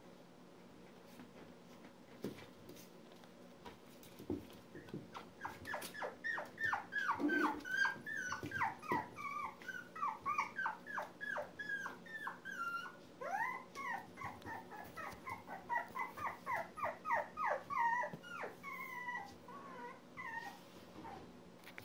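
Month-old poodle puppies whining in a long run of short, high cries, each dropping in pitch, two or three a second. The cries start about five seconds in and stop just before the end.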